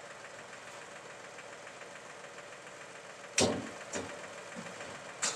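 Escorts 435 tractor's diesel engine idling steadily, driving a hydraulic loader crane. Sharp clanks cut through it as the crane-hung concrete mixer is moved onto the truck: a loud one about three and a half seconds in, a lighter one half a second later, and another near the end.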